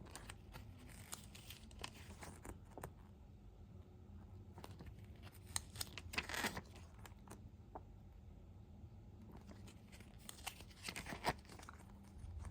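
Packaging of a CD and DVD set being handled and opened: crinkling and tearing in three spells, about a second in, around six seconds, and near eleven seconds.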